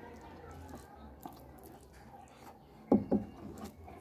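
A hand squishing and pressing soupy rice on a wooden board, with faint wet clicks. Two short dull knocks about three seconds in are the loudest sounds.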